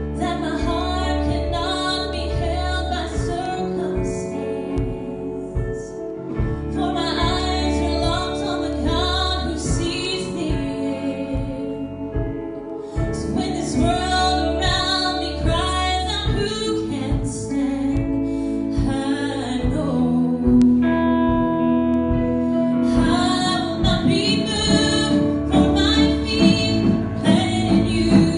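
Worship song: singing with instrumental accompaniment and a steady beat.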